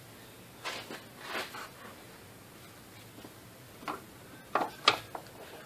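Faint, scattered clicks and knocks of hand tools working on transmission bell housing bolts, with a few sharper clicks about four to five seconds in.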